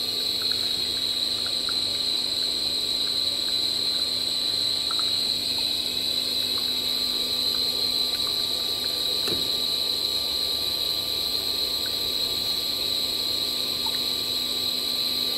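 NF 2000 screw-type cold press oil machine running steadily, its 11 kW motor and helical gearbox giving an even hum under a constant high whine, with a few faint ticks.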